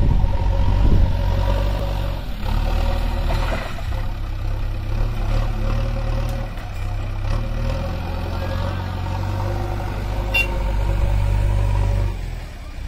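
Diesel engines running steadily with a low, even drone: a JCB backhoe loader working its loader arm as it loads soil into the trolley of a stationary John Deere 5050D tractor.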